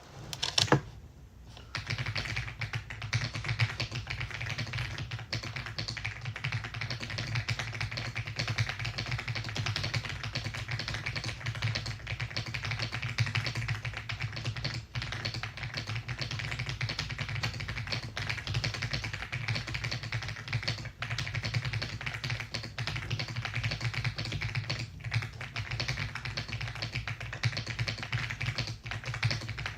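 Typing on an EPOMAKER x Aula F75 gasket-mounted mechanical keyboard. A few louder key strikes come about a second in, then fast, continuous keystrokes.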